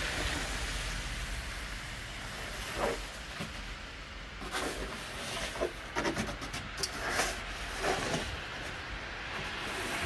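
Snow shovel scraping and pushing across a wet, partly cleared driveway in a series of short strokes starting about three seconds in, over a steady hiss of traffic on the slushy road.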